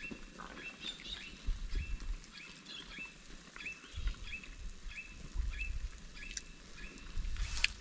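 A bird calling over and over in short, evenly spaced chirps, about two a second, with a low rumble underneath at times.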